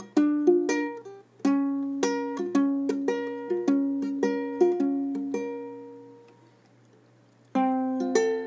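Music on a plucked string instrument: a picked melody of separate notes, each ringing and decaying. The playing dies away about six seconds in and starts again a second or so before the end.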